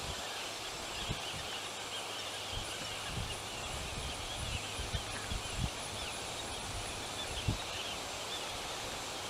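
Outdoor wildlife ambience: a continuous chorus of small, quick chirping bird calls with a faint steady high whine above it, broken by a few soft low thumps, the loudest about seven seconds in.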